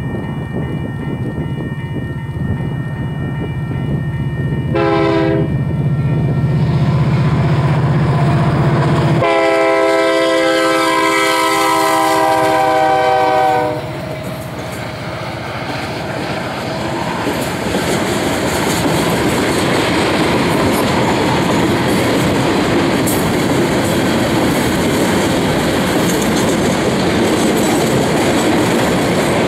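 Union Pacific SD70M diesel locomotive running past a grade crossing over a heavy engine drone, its horn giving a short blast about five seconds in and then a long blast that sinks slightly in pitch as it goes by, the end of the crossing signal. After the horn stops, flatcars loaded with concrete railroad ties roll by with steady wheel clatter on the rails.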